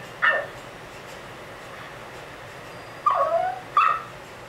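A Pekingese giving short, high-pitched yips: one about a quarter second in, then two more close together about three seconds in.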